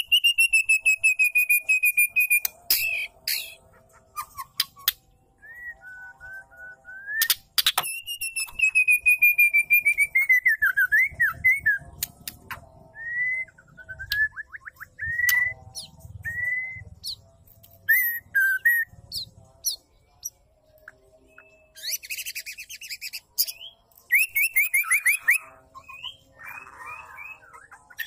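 Female white-rumped shama calling: long rapid trills that slide slowly down in pitch, broken by short whistled notes and glides, with a rasping call near the end.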